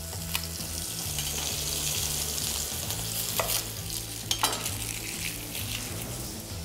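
Beef steak searing in a hot frying pan, a steady sizzle. A few sharp clicks of a knife on a wooden cutting board come through it as a shallot is peeled.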